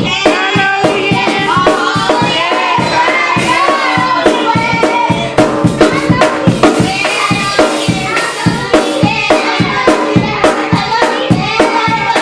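Children's choir singing, backed by drums and other percussion keeping a steady beat.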